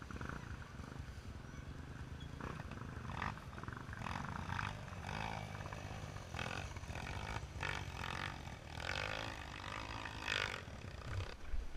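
Dirt bike engine running on a trail, revving up and down with the throttle.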